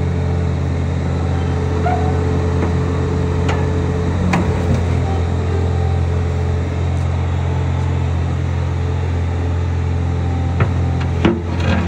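Bobcat S66 skid steer's 74 hp diesel engine running at a steady speed while the machine moves, with a few sharp knocks, two of them near the end.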